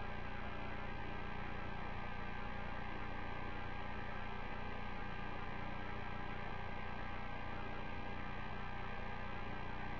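Steady electrical hum with a few constant high tones over an even hiss, unchanging throughout: the background drone of the Space Shuttle cockpit audio feed.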